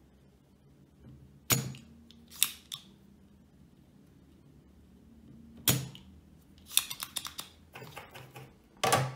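Spring-loaded desoldering pump (solder sucker) firing on a crossover board's solder joints: two loud, sharp snaps about a second and a half and nearly six seconds in, with smaller clicks between. Near the end, a run of clicks and rattles as the pump and tools are handled and set down on the bench.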